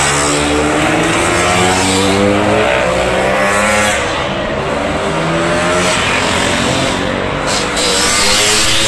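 Several scooter engines racing at once, their pitch climbing in short rising steps, one engine's note overlapping another's.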